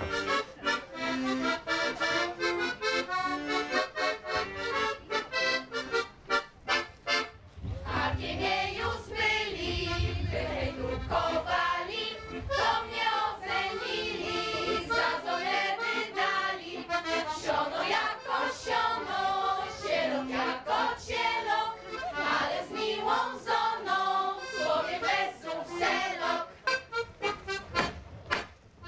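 Instrumental folk music with a quick, steady beat. About seven and a half seconds in, the sound changes and a deeper bass part comes in.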